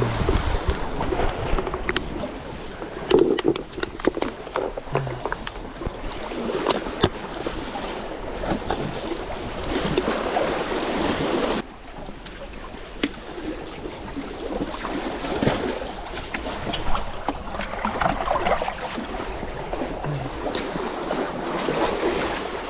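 Water sloshing and splashing with scattered knocks and handling clatter as water is gathered for mixing fishing groundbait; the sound drops abruptly about halfway through.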